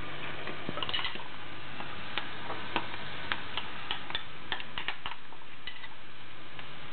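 Bakwan (vegetable fritters) deep-frying in a pot of hot oil: a steady sizzle with irregular sharp pops and crackles.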